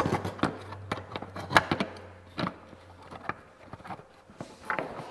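Irregular light metal clicks and knocks as a chrome gas cap is pressed and twisted into a hammer-formed sheet-steel flange pocket in a fender, testing its fit. A low hum runs under the first two seconds.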